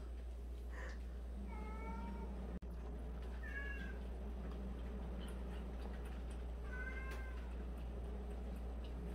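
Domestic cat meowing three times, each call short and pitched, spaced a couple of seconds apart, over a steady low hum.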